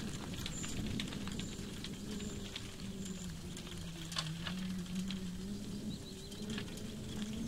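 Lakeside outdoor sound: a low, steady drone that slowly sags and rises in pitch, with scattered small chirps and ticks from birds.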